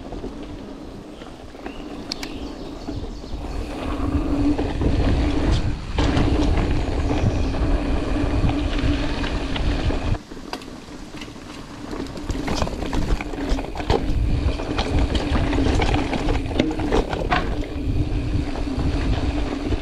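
Mountain bike ridden fast over a dirt trail: wind rumbling on the camera microphone, with tyre noise, a steady hum and frequent rattling knocks from the bike over bumps. The sound drops and changes abruptly twice, at cuts between trail sections.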